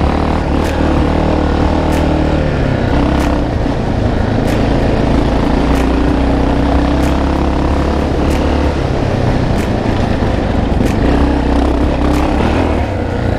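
Single-cylinder four-stroke engine of a 1987 Yamaha XT600 trail motorcycle running under way on a dirt track. Its note shifts with throttle, dipping about two-thirds of the way through and picking up again near the end. A sharp tick recurs about every second and a quarter.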